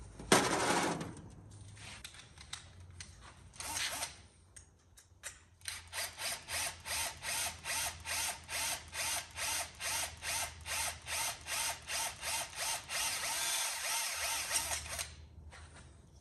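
Power drill enlarging a hole in thin aluminum sheet from 1/8 inch to 9/16 inch. A short burst comes near the start and another about four seconds in, then about nine seconds of quick, even pulses, roughly three a second.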